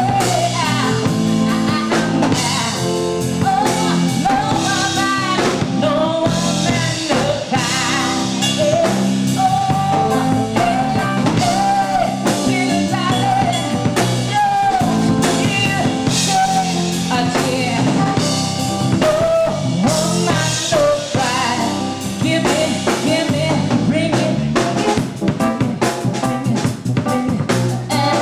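A woman sings live into a microphone over a band of keyboard and drums.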